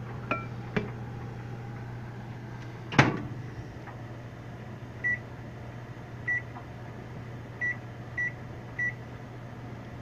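A Hamilton Beach microwave's door is shut with one loud click about three seconds in, then its keypad gives five short high beeps as the cook time is keyed in. A steady low hum from the clothes dryer underneath runs throughout.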